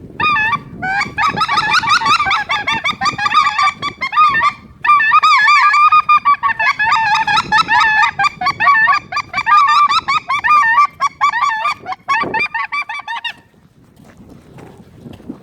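Geese honking, many wavering calls overlapping in a dense chorus that breaks off about thirteen seconds in.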